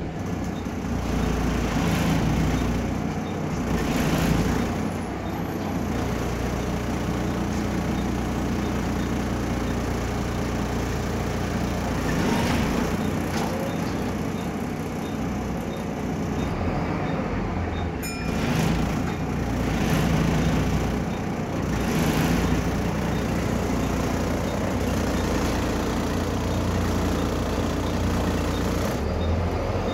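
Volvo B7RLE single-deck bus's six-cylinder diesel engine running under way, heard from inside the passenger saloon, with road noise and several brief louder swells.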